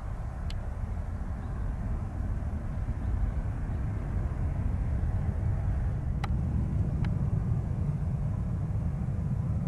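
Low, steady rumble of an Airbus A320 jet airliner's engines as it taxis, growing slightly louder a few seconds in, with a few faint ticks.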